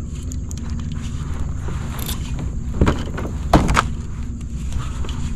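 Noises from a kayak while a hooked redfish is fought beside it: a steady low rumble with a few sharp knocks, the loudest two about three and three and a half seconds in.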